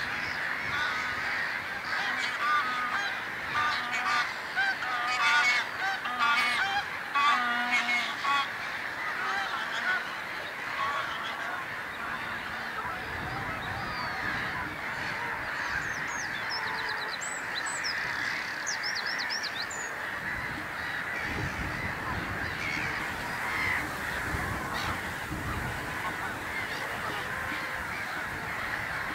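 A noisy waterbird chorus: many birds calling at once, with loud repeated honking calls through roughly the first ten seconds. A burst of high, thin chirps comes a little past the middle, and low wind rumble on the microphone runs through the second half.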